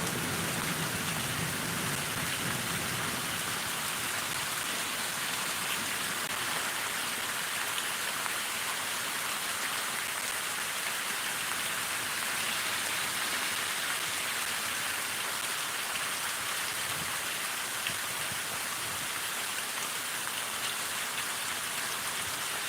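Heavy rain pouring down, a steady hiss that doesn't let up.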